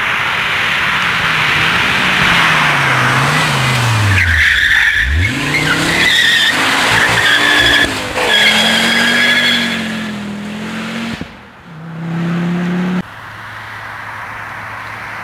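Ford Focus RS500's turbocharged five-cylinder engine driven hard through tarmac bends, its note rising and falling with the throttle and dropping sharply as the car passes close, with tyres squealing through the corner in the middle. Near the end the sound cuts abruptly to a steadier, lower engine note.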